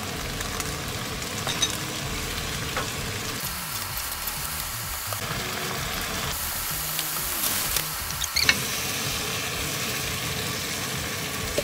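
Shrimp, onions and bell peppers sizzling in a hot frying pan with oyster sauce, stirred and scraped with a wooden spatula, with a few sharp knocks of the spatula on the pan.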